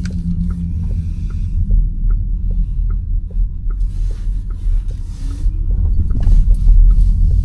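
Steady low road and tyre rumble from a Škoda Elroq electric SUV on the move, with no engine note, a higher hiss that swells and fades a few times, and a regular light ticking about two to three times a second.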